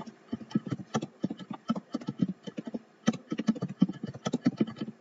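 Computer keyboard typing: a quick, uneven run of key clicks as a line of text is typed.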